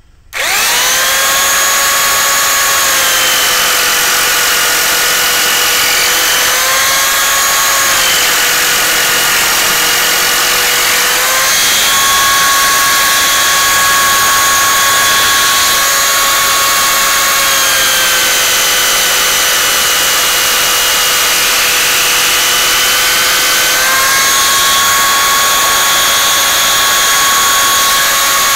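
Parkside PSTK 800 C3 800 W jigsaw switched on and cutting a 20×2 mm steel flat bar with a metal-cutting blade, pendulum action engaged. The motor whine runs loud and steady over the rasp of the blade, its pitch dipping and recovering a few times.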